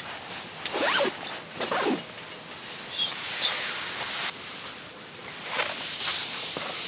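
Tent door zipper pulled in two quick rising strokes about a second apart, followed by rustling as someone moves about in the tent.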